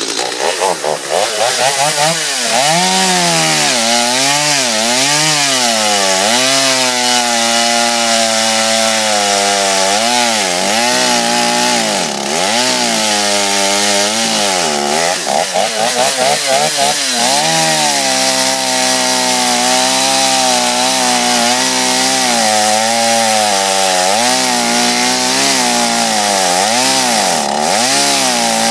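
Small 49 cc two-stroke chainsaw running just after a drop start, its engine pitch rising and falling over and over as it is throttled up and dips under load while cutting into a log.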